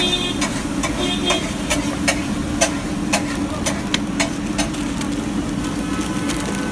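Liquid simmering in a metal kadai on an induction cooktop, with frequent small pops and clicks over a steady low hum. A spoon stirs the pan briefly at the start.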